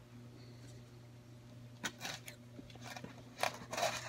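Baseball cards being handled and set down in a cardboard box: several short rustles and soft taps in the second half, over a faint steady low hum.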